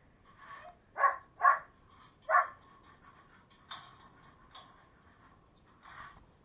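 Dog barking: three loud, sharp barks in the first two and a half seconds, followed by a few fainter barks.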